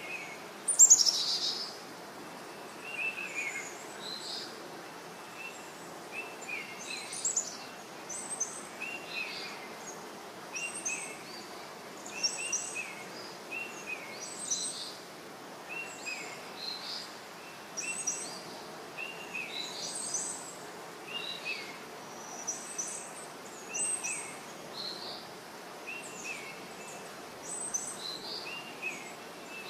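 Small birds chirping: short high calls repeating every second or two over a steady background hiss, with one louder, falling call about a second in.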